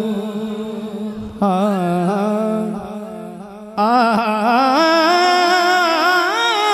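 Male naat singer's wordless, melismatic vocal with a wavering, bending pitch over a steady low drone; the voice eases off near the middle and comes back in strongly a little before four seconds in.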